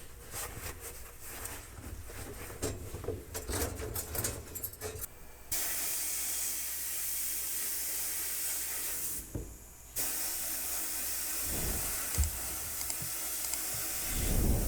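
A few light clicks and knocks, then about five seconds in a loud, steady hiss of compressed air starts. It runs in two long bursts with a short break a little before ten seconds, the sound of an air-powered spray or blast tool working on the pistol's parts.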